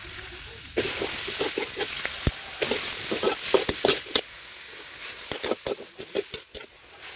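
Shredded cabbage, carrot and greens sizzling in oil in a hot wok as a metal spatula stirs them, with clicks and scrapes of the spatula on the pan. The sizzle falls away about four seconds in, leaving quieter stirring and scraping.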